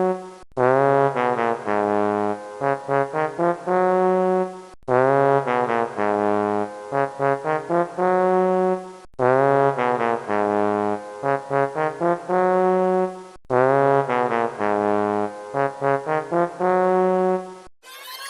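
A short brass-sounding tune, held low notes followed by a run of quick short notes, played as a loop. The same phrase of a little over four seconds repeats four times, each repeat starting after a brief hard cut.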